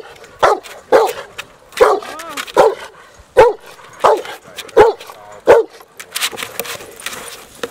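Rottweiler barking repeatedly at a decoy in bite-sleeve protection training: about nine loud barks, roughly one every three quarters of a second, stopping after about five and a half seconds.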